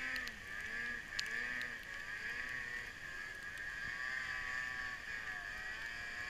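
Ski-Doo Summit 800 E-TEC two-stroke twin snowmobile engine revving up and down over and over as the rider blips the throttle working across and up a powder slope, with a steady high-pitched hiss underneath.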